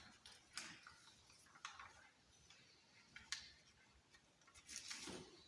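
Near silence with a few faint, scattered clicks and a short light rustle near the end.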